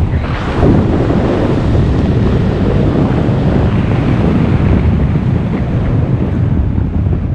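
Wind buffeting the camera's microphone during a descent under an open parachute canopy: a steady, loud, low rush.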